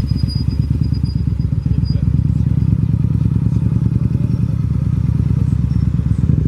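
Harley-Davidson V-Rod's V-twin engine running at low revs as the bike is ridden slowly through tight turns, a steady pulsing rumble.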